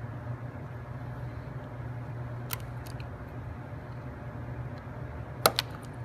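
A steady low hum in the room, with one faint click about two and a half seconds in and a sharp double click near the end, from wooden toothpicks and a box cutter being handled on a wooden workbench.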